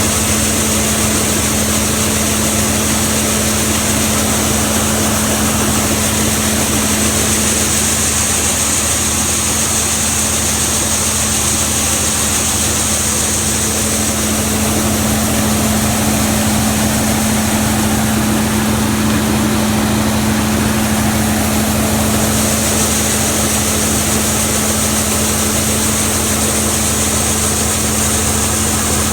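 Large farm machine's diesel engine running steadily, a constant drone with a held hum and a high whine that fades for several seconds midway, then returns.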